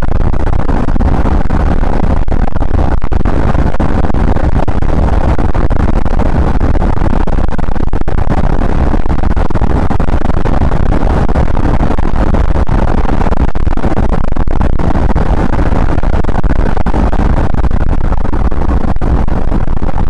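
Loud steady road and engine noise inside a police car driving at highway speed.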